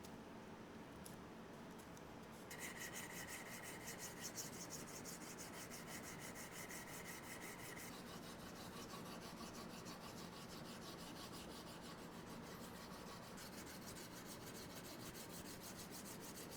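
Rapid, even rubbing strokes of abrasive work on the wooden guitar body, starting about two and a half seconds in, with a faint steady whine alongside.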